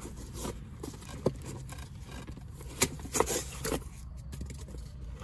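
Packaging being handled: a few short scrapes and taps as the foam cover is lifted off a boxed mirror dash cam, over a steady low rumble.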